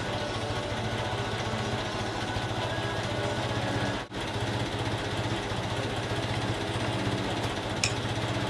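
Heavy-equipment engine idling steadily, with a brief dropout about four seconds in.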